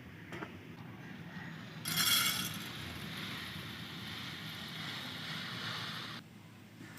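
Water running or being poured while ridge gourd pieces are washed. It starts about two seconds in as a steady hiss, strongest at the start, and stops abruptly near the end.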